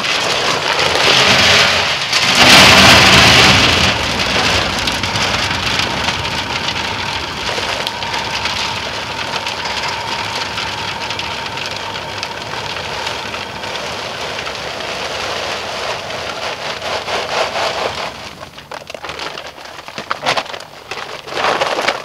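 Dry pellet bait poured from a bag into a steel drum barrel, making a steady rain-like rattling hiss of pellets spilling against the metal and each other. It is loudest in the first few seconds and thins to scattered patters near the end.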